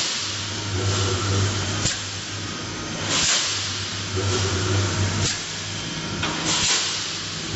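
Double-wire mesh fence welding machine running: a steady low electrical hum from the welding transformer, broken by four short sharp air hisses, typical of the pneumatic cylinders pressing and releasing the welding electrodes.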